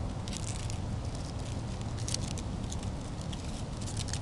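Dry leaf litter and pine needles rustling and crackling in short, irregular bursts, over a steady low rumble.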